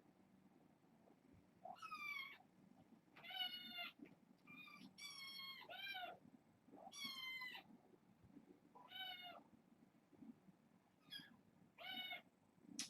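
Young kittens meowing repeatedly: about nine short, high-pitched meows, several of them sliding down in pitch.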